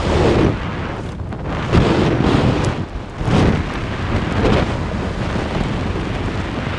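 Heavy wind rush buffeting the microphone of a bored-up 175cc Yamaha NMax scooter riding at speed, surging in gusts every second or so, with the scooter running beneath it.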